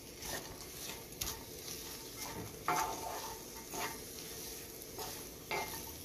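A wooden spatula stirring sliced onions, garlic, ginger and green chillies in a pan with coconut oil, over a steady sizzle. There are about five scraping strokes, roughly one a second, the loudest about three seconds in.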